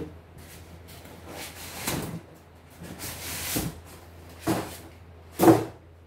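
Styrofoam box and cardboard carton being handled: scraping and rustling with several separate knocks, the loudest about five and a half seconds in as the box is set down on a wooden workbench.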